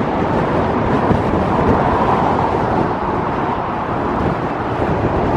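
Strong gusty wind buffeting the microphone: a loud, steady rushing roar.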